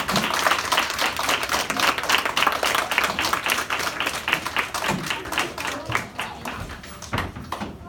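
A group of children clapping and applauding, many quick hand claps together, thinning out near the end.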